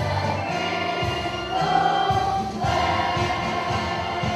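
A children's choir singing a song over an instrumental accompaniment with a bass line.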